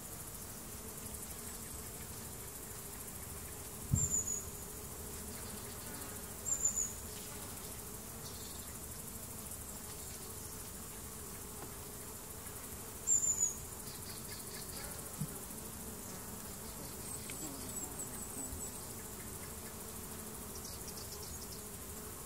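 Faint outdoor garden ambience: a steady insect buzz, broken by three short high bird chirps and a quick run of chirps about three quarters of the way through.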